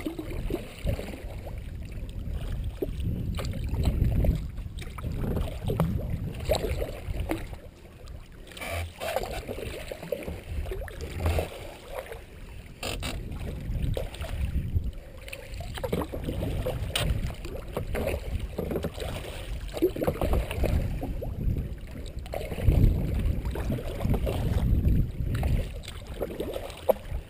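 Sea kayak being paddled: a double-bladed paddle dipping and splashing with each stroke and water swishing along the hull, with irregular low rumbling surges throughout.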